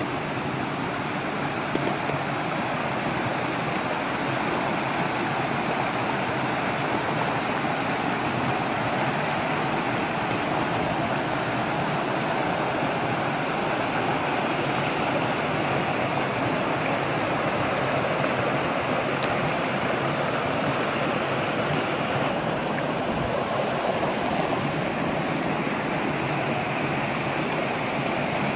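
Water of a shallow rocky stream rushing steadily over small rapids.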